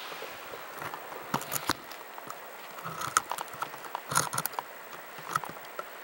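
Handling noise on a camcorder: irregular clicks and knocks as it is moved and set down, the loudest about four seconds in.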